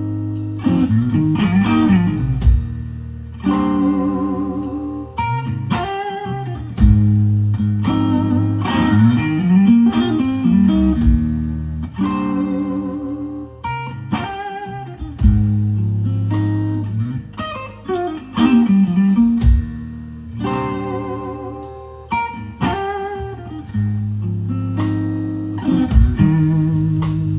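Electric guitar playing an instrumental blues solo, with many string bends, over sustained bass notes.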